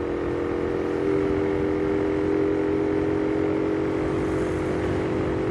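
Motorcycle engine running at a steady cruising speed, its tone holding level, with wind rushing over the microphone.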